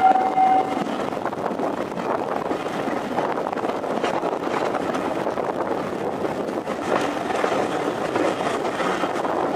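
Steam-hauled train running, heard from a carriage window: a steady rumble and clatter of the coaches on the track. A held whistle note cuts off about a second in.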